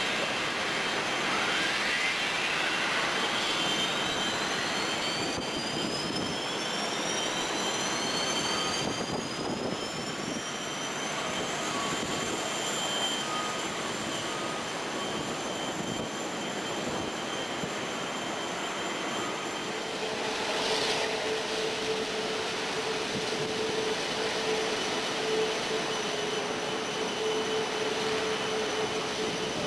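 Airbus A380's Rolls-Royce Trent 900 turbofan engines spooling up: two whines climb steadily in pitch over a steady jet rush, and a steady lower hum joins about two-thirds of the way in.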